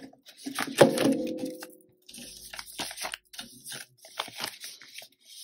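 Crinkling and rustling of plastic banknotes and a clear plastic binder envelope being handled, with one sharp click about a second in that rings on briefly.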